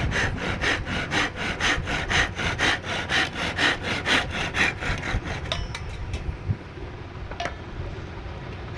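Quick back-and-forth strokes of a hand tool working wood, about four a second, stopping about five and a half seconds in.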